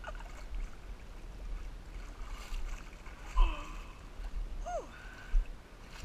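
Shallow river water sloshing with a low rumble of wind and handling on the camera microphone, and two short vocal sounds falling in pitch, about three and a half and five seconds in.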